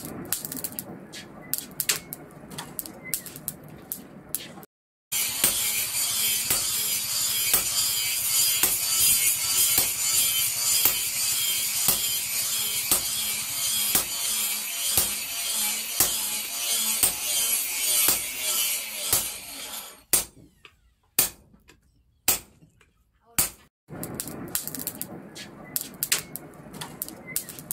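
A sledgehammer striking a hot-cut chisel to cut a red-hot steel bar on an anvil: a steady run of sharp metal strikes over a loud hiss. The blows stop for a few seconds of near quiet with scattered knocks, then resume more softly near the end.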